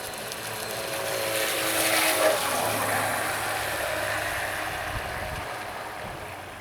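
Radio-controlled SHG Shadow model boat's brushless electric motor and propeller whining as the boat passes close by on the water. It grows louder to a peak about two seconds in, drops in pitch as it passes, and fades away over the rush of water.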